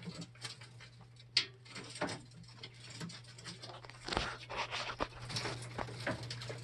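Young coturnix quail shuffling and pecking in a wire-mesh cage, making irregular light taps and clicks, with one sharp click about a second and a half in and a busier run of taps past the middle. A steady low hum runs underneath.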